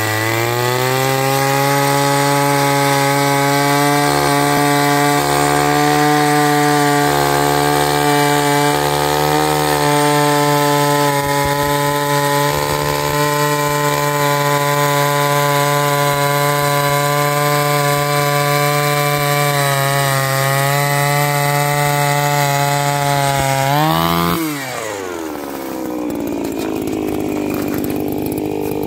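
Eskimo Stingray S33 ice auger's 33cc two-stroke engine running at full throttle, boring a 20 cm hole through about 75 cm of ice with blades never sharpened. Near the end the revs rise briefly, then fall away to a lower idle.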